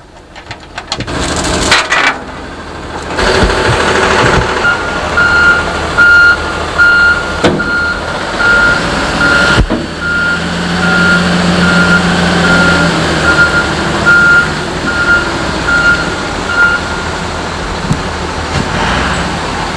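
A vehicle's electronic warning beeper sounds a long, even run of short beeps, a little more than one a second, over a running engine. The beeps stop a few seconds before the end, and there is one sharp knock about halfway through.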